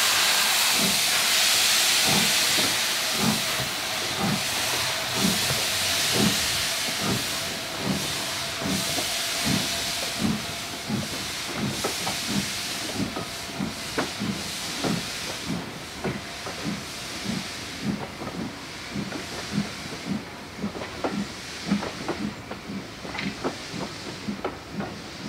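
Steam locomotive (an LSWR S15 4-6-0) passing with its train: a loud hiss of escaping steam that fades after about six seconds. Under it and after it comes a steady rhythm of low clicks, about one and a half a second, as the coaches' wheels roll past over the rail joints.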